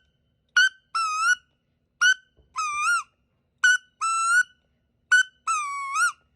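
Duck Commander Woody wood duck call blown in the sitting call used to bring wood ducks in: four paired whistled notes about every second and a half, each a short sharp note followed by a longer note that rises at its end.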